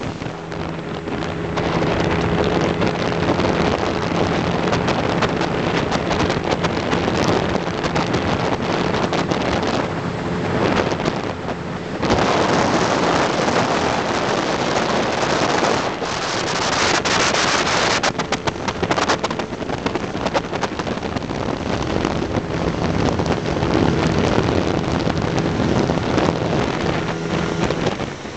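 Motorboat engine running steadily as it tows a surfer, its hum half-buried under wind buffeting the microphone and the rush of water. The wind noise swells loudest for a few seconds about halfway through.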